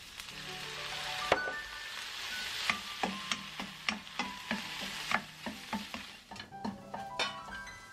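Water poured into a hot frying pan of softened dried-eggplant strips sets off a hiss of sizzling that swells over the first few seconds and then dies down. A wooden spatula stirs the strips with repeated light taps and scrapes against the pan.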